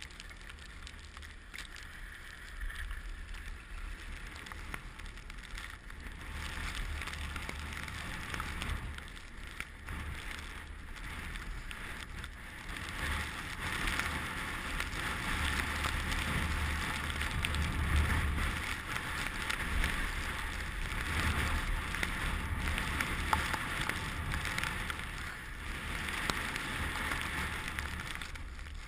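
Skis sliding and scraping over snow in a continuous hiss, with wind rumbling on the microphone; it grows louder as the run picks up pace partway through.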